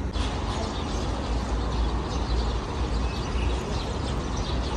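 Steady outdoor background noise with a low rumble and faint, short high chirps.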